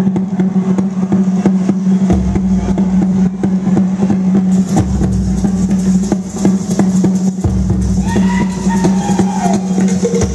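Pacific log-drum percussion music: fast, even strokes on slit-log drums over a steady low drone, with a deep bass drum coming in and dropping out in stretches.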